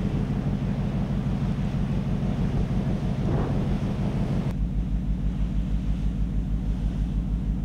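Wind on the microphone over the low hum of a ship's engines on deck. About halfway it cuts to a quieter, less windy take where the engine hum pulses evenly several times a second.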